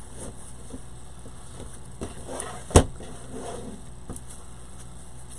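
Faint handling noise with one sharp knock a little before the middle, over a low steady hum.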